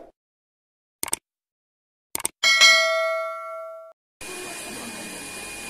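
Edited-in sound effects: a short click about a second in, two quick clicks a second later, then a bell ding that rings out for about a second and a half and cuts off. A steady low hiss of room noise starts near the end.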